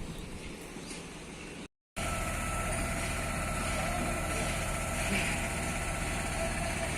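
Heavy truck engine running steadily at a constant speed, after a brief cut; before the cut, only faint site ambience.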